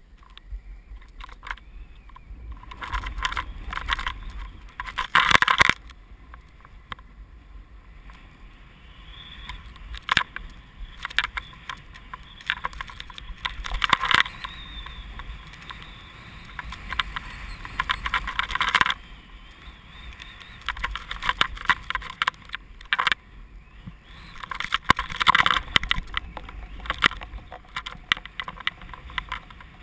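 A rider turning through deep powder snow: hissing, scraping snow that swells in loud surges every few seconds with each turn, over a steady low wind rumble on the microphone.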